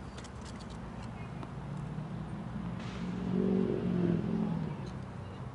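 A motor vehicle passing by, its engine note growing louder for a couple of seconds and then fading away.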